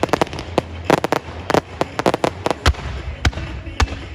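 Aerial fireworks going off in a rapid, dense volley of sharp bangs and crackles, with a few deeper booms in the second half.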